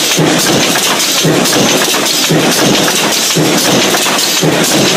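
Automated stamping press running with a progressive die, punching steel parts for self-closing cabinet hinges: a loud, dense metallic clatter with a heavier stroke about once a second.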